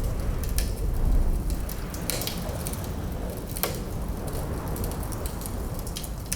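Wood fire crackling, with a few sharp pops spread through, over a steady low rumble of wind.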